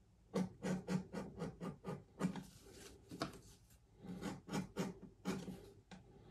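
Hand-sanding the edges of thick bridle leather pieces: quick rasping strokes, about four a second, with a short pause a little past halfway.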